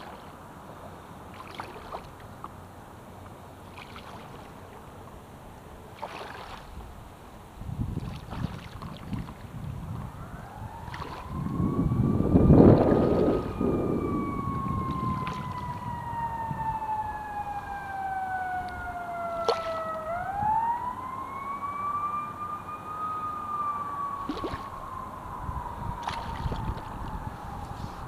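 Emergency vehicle siren wailing: about ten seconds in it rises, then falls slowly, then rises and falls again, over the faint splash of paddle strokes. A loud rush of noise swells briefly about twelve seconds in.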